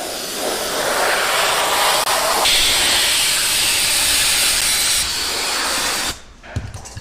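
Compressed air hissing loudly for about six seconds, changing tone about two and a half seconds in and again near five seconds, then cutting off abruptly.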